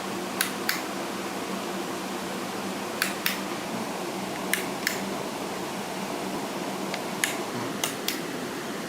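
Sharp, short clicks, mostly in pairs about a third of a second apart, coming every few seconds over a steady hiss with a low hum.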